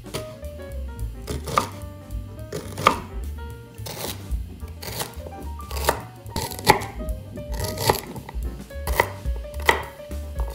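Chef's knife chopping celery stalks on a wooden cutting board: a series of sharp knife strikes about once a second, over background music.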